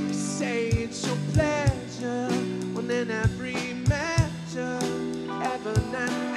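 Live band playing a song: drum kit, acoustic and electric guitars and keyboard, with a lead melody that bends up and down in pitch over steady chords and drum hits.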